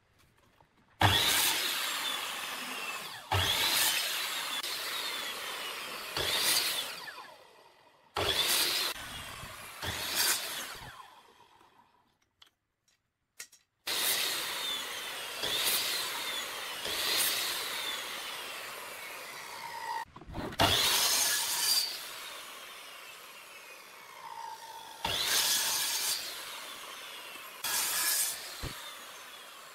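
Electric miter saw making a series of crosscuts through thin hardwood strips. Each cut starts sharply as the blade bites, then its whine falls as the blade spins down. There is a brief silence partway through.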